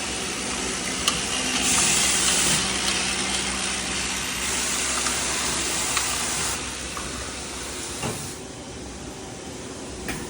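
High-pressure coolant system of a CNC lathe cell running: a steady pump hum with two stretches of loud hiss from high-pressure spray, the second about two seconds long, before the noise drops away near the end.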